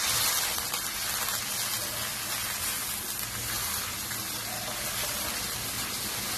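Onion-and-spice masala sizzling in oil in a wok, with half a cup of water just stirred in: a steady hiss that is loudest at the start and eases slightly.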